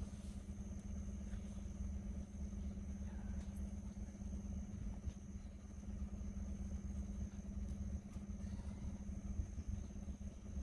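Pickup truck engine running steadily with a low, even hum while it pulls logs off.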